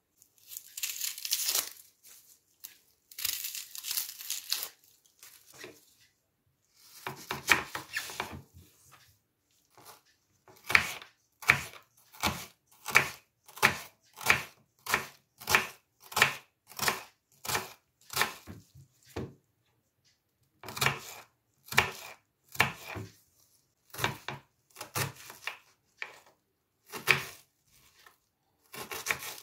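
Red onion's papery skin tearing as it is peeled, then a knife slicing and dicing the onion on a wooden cutting board: a steady run of short, crisp cuts, about two a second, each knocking onto the board.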